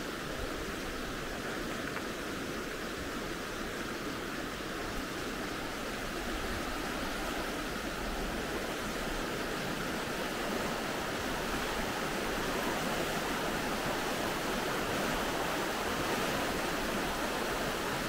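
Steady rush of a fast glacial meltwater river's white water, growing slightly louder.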